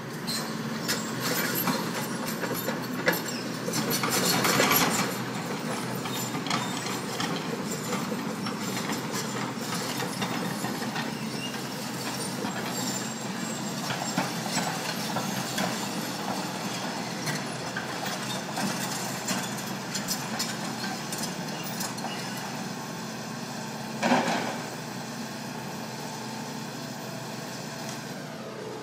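Hydraulic demolition excavators working: a steady diesel engine drone with knocks and clatters of the bucket and rubble. There are louder clatters about four seconds in and a short one towards the end.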